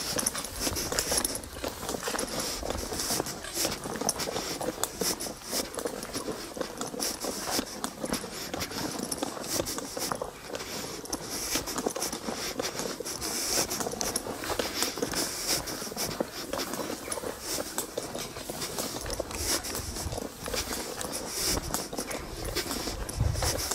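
Footsteps crunching on a narrow gravel towpath, an irregular run of short crunches. A low rumble comes in over the last few seconds.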